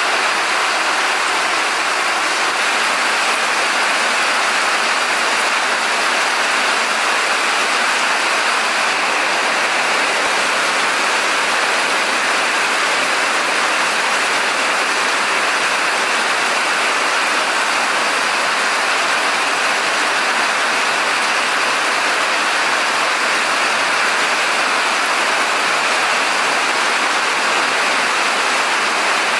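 Steady rain pouring down, with water streaming off a roof edge onto wet ground: a loud, even hiss that doesn't let up.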